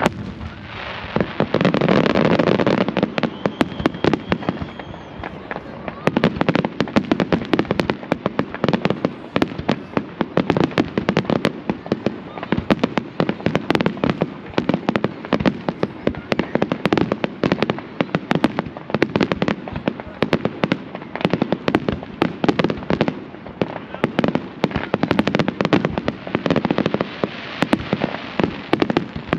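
Fireworks display: a rapid barrage of bangs and crackling pops that thickens into a near-continuous volley about six seconds in.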